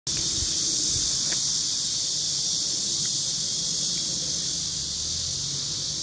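Daytime insect chorus, most likely cicadas in the trees: a steady, high-pitched buzzing that does not let up.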